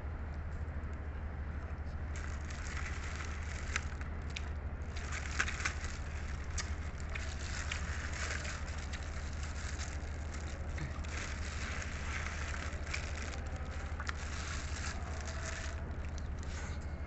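Crunching and chewing of food close to the microphone, a dense run of crackly crunches with small clicks, over a steady low hum.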